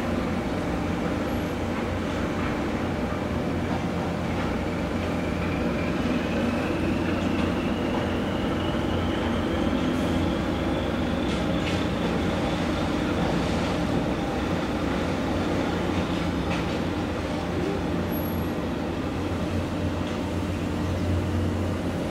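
Harbour tug's diesel engine running steadily under way, a low rumble with a faint high whine that slowly rises in pitch over the first dozen seconds.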